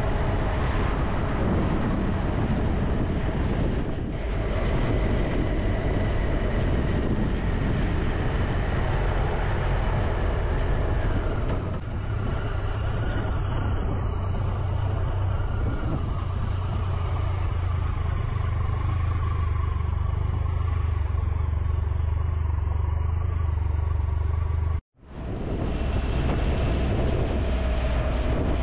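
Triumph Tiger 1200 three-cylinder motorcycle engine running while riding, with wind and road noise over a steady low hum. For a stretch in the middle the hum is steadier and the hiss drops away. Just before the end the sound cuts out for an instant, then comes back.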